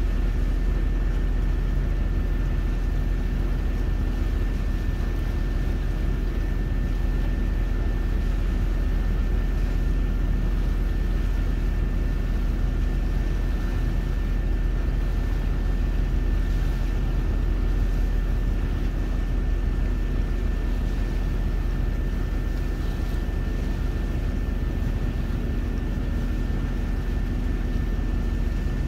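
A small boat's engine running steadily under way: an unbroken low drone with a thin steady whine above it.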